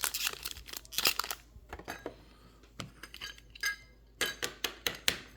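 Trading cards and plastic card holders being handled: an irregular run of sharp clicks and light clinks, loudest about a second in and again near the end.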